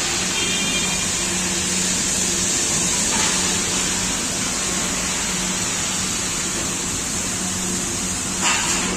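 Steady rushing machinery noise with a faint low hum underneath, unchanging throughout.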